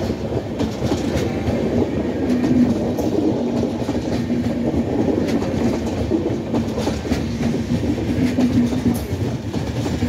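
Indian Railways passenger coaches rolling past on the next track: a steady rumble of steel wheels on rails, with repeated clacks as the wheels cross rail joints and points.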